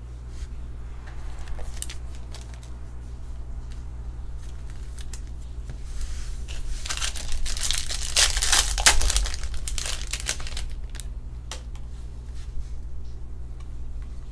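A foil trading-card pack being torn open and crinkled by hand, with a dense crackle for a few seconds around the middle. Scattered rustles and clicks of cards being handled come before and after.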